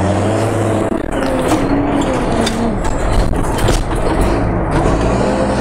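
Renault rally truck's diesel engine running hard at speed off-road, its note stepping up and down, with knocks and rattles as the truck bounces over rough ground.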